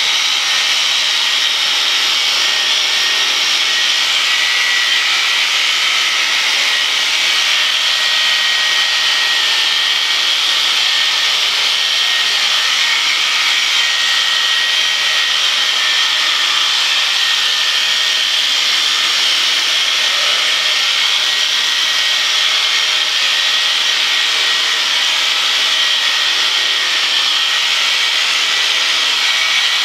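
Electric sheep shears running steadily with a high buzz as the cutter works through a ram's wool fleece.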